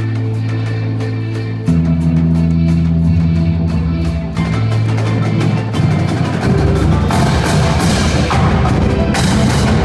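High school indoor drumline with its front ensemble playing: marching snare and bass drums and cymbals over held low notes from amplified electric guitars and a synthesizer keyboard, with a marimba. The low notes change chord twice, growing louder about two seconds in. From about six and a half seconds the drumming thickens, with cymbal crashes near seven and nine seconds.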